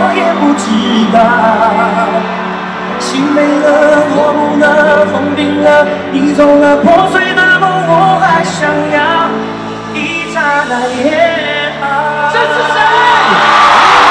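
Male singer singing live into a handheld microphone over a rock band, with electric guitars. Near the end the crowd starts cheering and yelling.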